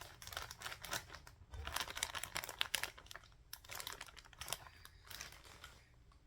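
Plastic packaging of a bag of cotton balls crinkling and rustling in irregular bursts as it is handled, thinning out near the end.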